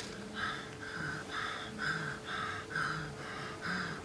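A man panting in short, partly voiced breaths, about two a second, evenly spaced.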